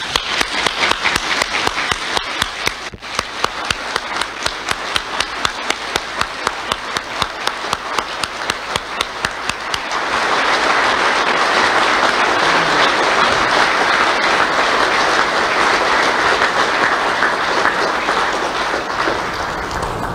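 A congregation giving a standing ovation: sustained applause of many hands, with sharp single claps close by standing out at first. About ten seconds in it swells louder and fuller.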